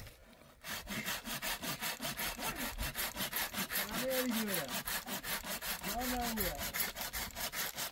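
Hand saw cutting into a dry tree branch with quick, even back-and-forth strokes, about five a second, starting just under a second in.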